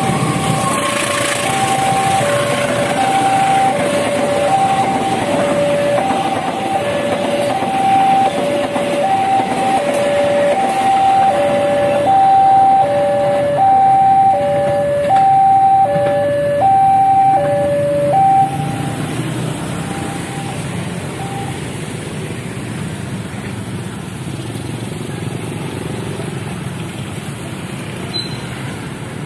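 Level-crossing warning alarm sounding a two-tone chime, alternating high and low about once a second, over the rumble of a diesel-hauled passenger train passing. The alarm stops about two-thirds of the way through, and the rumble gives way to the softer sound of road traffic starting across.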